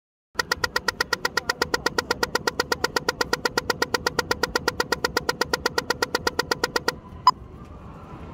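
Pedestrian crossing signal's audible ticker clicking rapidly, about ten sharp ticks a second, the fast tick that marks the walk phase. It stops suddenly near the end, and a single slower locator tick follows, over faint traffic noise.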